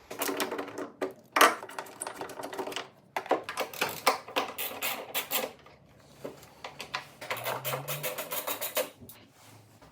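A hand tool undoing the three 10 mm bolts that hold a headlight, clicking rapidly in three runs with short pauses between them.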